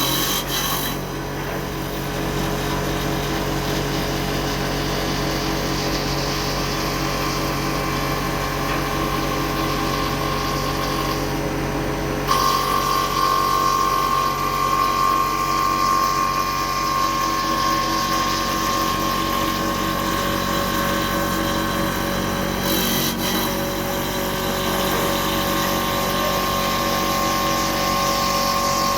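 CNC wood lathe running and cutting a spinning wooden blank: a steady machine hum with the rasping of the cutter on wood. About twelve seconds in, a louder, higher steady whine joins and holds.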